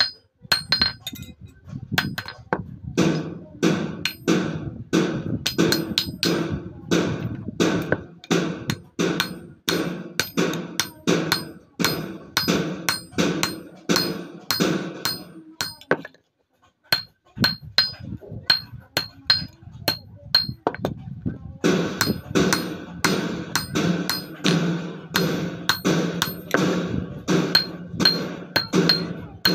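Hand hammer striking a chisel into cold, unheated steel laid on a railway-rail anvil: steady metallic blows about three a second, each ringing briefly, with a short pause about halfway.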